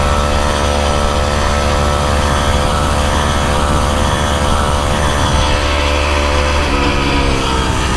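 49cc Motoped Survival Bike engine running steadily at cruising speed, with wind buffeting the microphone. About two-thirds of the way through, the engine note starts to fall as the bike slows.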